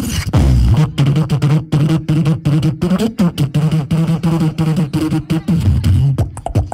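Beatboxing into a handheld microphone: quick, sharp mouth-drum hits over a low hummed bass line. Near the end the bass drops out, leaving only rapid percussive clicks.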